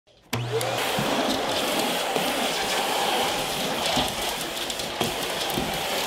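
Canister vacuum cleaner switched on about a third of a second in. It starts suddenly with a brief low hum, then its motor runs steadily.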